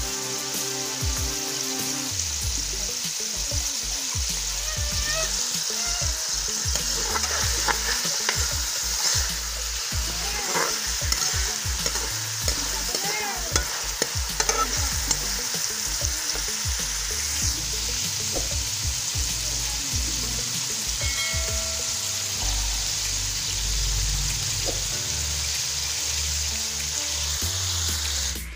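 Sliced red onions sizzling steadily in hot oil in a steel pan, with the scrape and clink of a metal spoon stirring them now and then.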